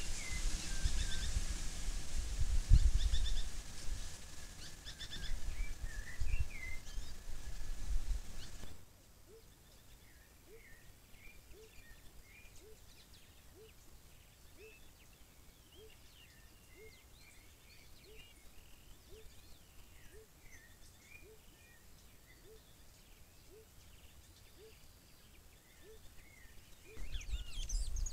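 Small birds chirping and calling in forest. Over the first third there is a loud low rumbling noise; after that it is much quieter, and a short low note repeats a little more than once a second beneath the chirps.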